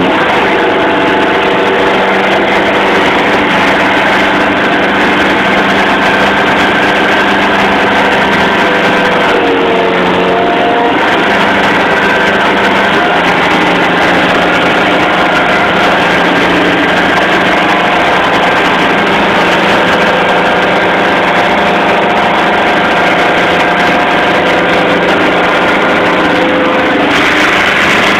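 Fishing boat's engine running steadily, a loud constant drone heard from inside the wheelhouse.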